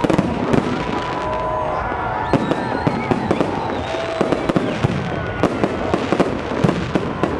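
Fireworks display: aerial shells bursting in a dense, unbroken run of bangs and crackles, several going off each second, with a few faint held tones over them.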